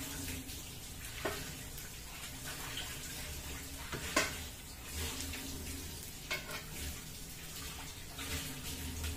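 Pork belly deep-frying in hot oil in a wok, a steady sizzle. Three sharp clicks, about a second, four seconds and six seconds in, come from tongs knocking the wok as the fried pieces are lifted out.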